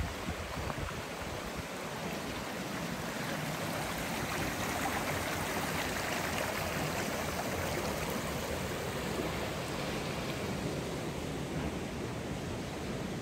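Water running in a small stream, a steady rushing that swells a little midway.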